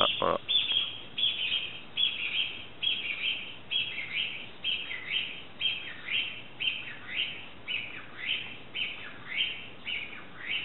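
A bird calling over and over without pause, a short high call about twice a second, a hell of a racket repeating in a loop. A brief low thump comes at the very start.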